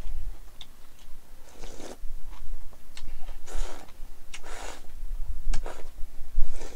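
A person slurping mul-naengmyeon, cold buckwheat noodles in broth, straight from the bowl in several short slurps, with chewing and small clicks between them.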